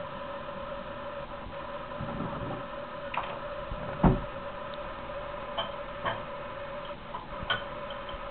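A steady hum with a few faint clicks and one louder knock about four seconds in.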